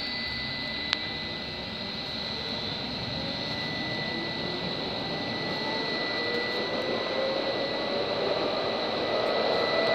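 Pesa 120NaS tram accelerating, heard from on board: the traction motor whine climbs steadily in pitch over steady rolling noise, growing slowly louder as the tram picks up speed. There is a single click about a second in.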